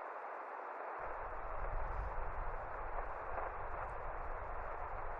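Steady hiss of band noise from a Yaesu FT-891 transceiver's speaker tuned to an empty 15-metre band, with no Morse signals coming through. A low rumble sits under it, dropping out for about the first second.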